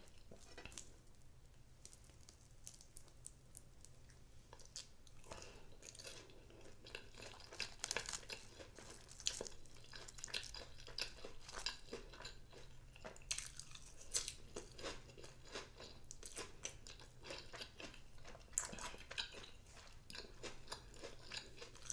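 Close-miked eating: irregular crisp crunches, clicks and wet chewing as a person bites and chews food. About ten seconds in it is raw cabbage salad, with spicy fried chicken nuggets in cheese sauce on the plate.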